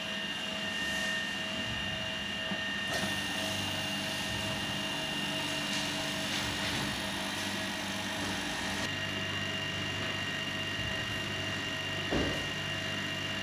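FD-1A-50 lab freeze dryer running: its refrigeration compressor and vacuum pump give a steady low hum with a thin high whine, as the cold trap cools and the chamber pulls down to vacuum. About nine seconds in the hiss drops away and the low hum changes, and a short knock comes near the end.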